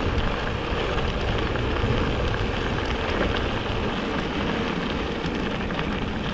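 Mountain bike tyres rolling fast over a gravel track: a steady crunching hiss with small stones ticking, over a low rumble of wind on the microphone that eases off about two-thirds of the way through.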